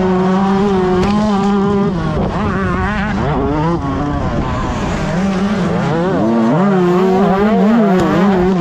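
A 125cc two-stroke motocross bike's engine at racing speed, its revs climbing and dropping repeatedly with throttle and gear changes.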